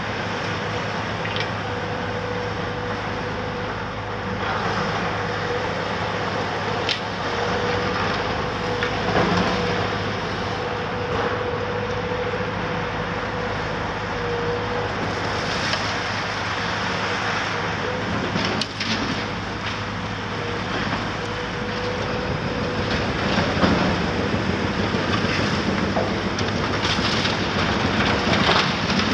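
Caterpillar 374F excavator's diesel engine running under load with a steady whine, amid the crunching and cracking of demolition debris, with a few sharp knocks.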